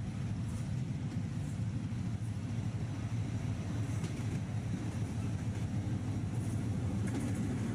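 Diesel locomotive hauling an express train, approaching at speed: a steady deep rumble that grows slightly louder as it nears, with faint clicks from the rails toward the end.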